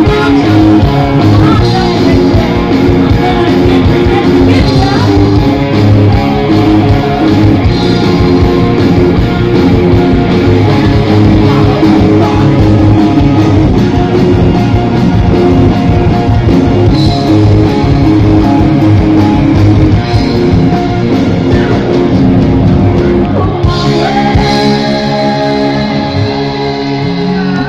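Live rock band playing: electric guitars, bass and drums with sung vocals. About 24 seconds in the drumbeat drops away and held chords ring on.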